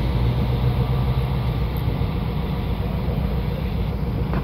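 EMD GP38-2 diesel-electric locomotive's two-stroke V16 prime mover running steadily as the lone unit shoves back along the track, a low engine rumble.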